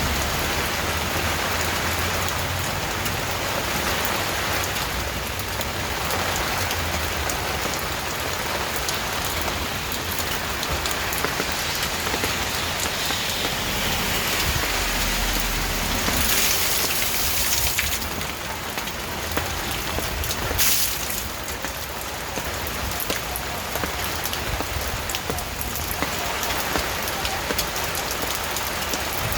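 Steady, heavy rain falling and pattering on surfaces, an even dense hiss. About two-thirds of the way through there is a single short sharp drip or tap.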